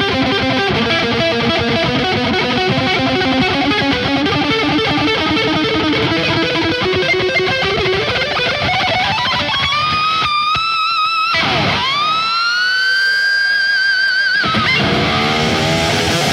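Electric guitar solo over a full band of bass, drums and keyboard. About eight seconds in the guitar climbs in pitch, and the band drops away. The guitar holds a long high note that swoops down and back up, and the band comes back in near the end.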